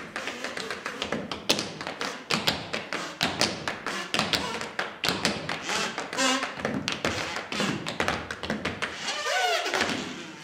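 Two pairs of tap shoes striking a wooden stage floor in fast, dense rhythms, with heavier heel thumps among the taps. Near the end a falling pitched glide sounds over the taps.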